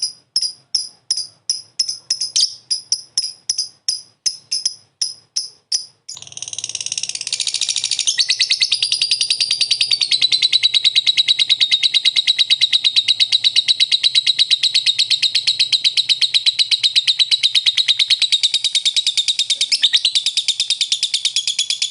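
Lovebird calling in separate sharp chirps, about three a second. About six seconds in it breaks into ngekek, the long, very fast, unbroken chatter that lovebird keepers prize and train for, which carries on steadily without a pause.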